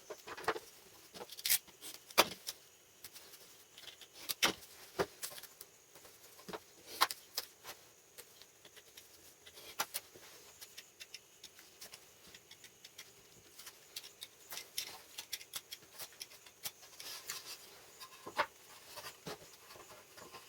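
Irregular light clicks and taps of small hard objects being handled, sometimes several in quick succession, with short pauses between.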